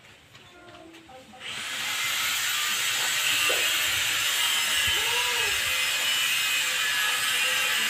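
A power tool starts up about a second and a half in, its whine rising, then runs steadily and loudly with a harsh hiss.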